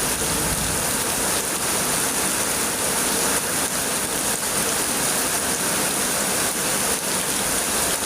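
Heavy rain pouring steadily on surfaces, a dense, even hiss with no letup.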